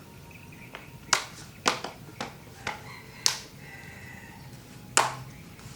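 Plastic back cover of an Asus X201E notebook being pressed shut, its clips snapping into place in a series of about seven sharp clicks, the loudest near the end.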